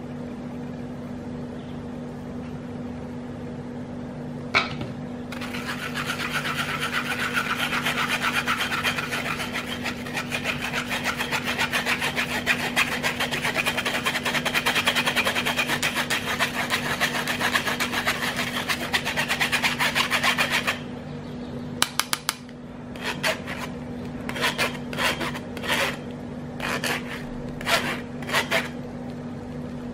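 A metal spoon scraping and pressing blended prickly pear pulp through a stainless steel mesh sieve to strain out the gel. There is a single click a little over four seconds in, then fast continuous scraping until about twenty seconds in, followed by a series of separate strokes.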